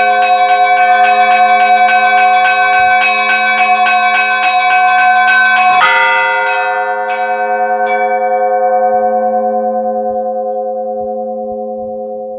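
Russian Orthodox church bells being rung: a rapid run of small-bell strikes over steady ringing tones, a sharp closing stroke about six seconds in, then a few lighter strikes as the bells ring on and slowly die away.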